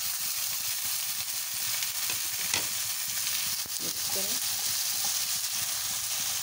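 Chopped tomatoes sizzling in hot oil with onions and garlic in a frying pan, a steady hiss. A spatula stirs them, scraping against the pan a few times.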